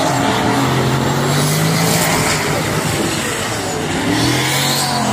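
Two drift cars' engines held at high revs, their pitch rising and falling as they slide, over a continuous rush of rear tyres spinning on asphalt.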